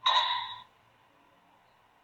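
A pheasant giving one short, harsh call at the start, about half a second long, that fades quickly; it is one of a series of repeated calls.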